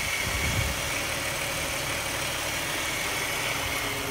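2003 Cadillac CTS 3.2-litre V6 idling steadily, heard from the open engine bay, with a faint steady high-pitched tone over the engine noise.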